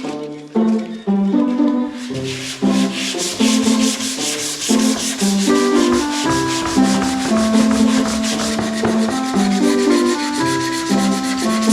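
Sandpaper rubbing on the wooden cutting board in quick, even back-and-forth strokes, starting about two seconds in, over background music with a simple melody.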